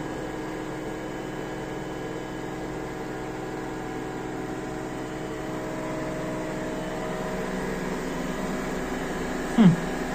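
LG F4DV509S0E washer-dryer spinning an empty drum at high speed: a steady, low motor-and-drum hum with several steady tones, growing slightly louder in the second half. The empty drum is well balanced and runs smoothly without knocking against the cabinet. Near the end a brief, loud sound falls sharply in pitch.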